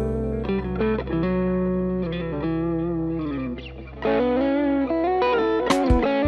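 Fender American Ultra II Stratocaster HSS electric guitar playing a lead melody of sustained notes with bends and vibrato, through an amp-sim plugin with delay and reverb, over a backing track with a steady low bass. Near the end the notes come quicker.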